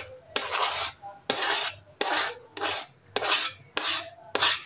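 A plastic spoon scraping repeatedly across a wooden cutting board, pushing chopped cabbage and tomato off the board into a bowl: about eight short rasping strokes, a little over half a second apart.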